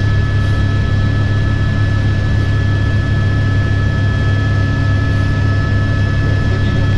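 Helicopter in flight heard from inside the cabin: loud, steady rotor and engine noise with a deep hum and a steady high whine.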